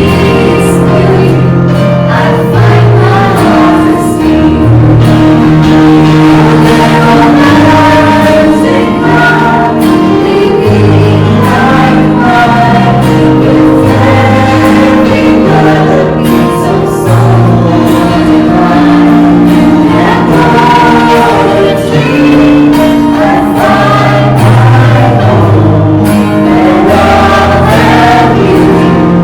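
Soundtrack music: a choir singing over sustained chords, with the bass moving to a new note every second or two.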